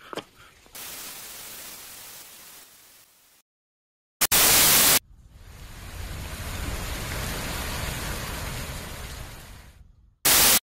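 Static-like noise with no tone in it: a steady hiss that stops about three seconds in, then a short, loud blast of white noise about a second later. A hiss then swells up and fades away, and a second short, loud blast comes near the end.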